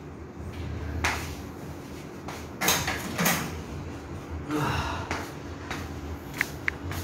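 Kitchen clatter: scattered knocks and bumps of things being handled, then two short metallic pings near the end.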